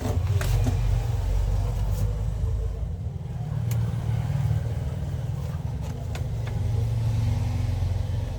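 A steady low rumble that swells and fades slowly, with a few light clicks scattered through it.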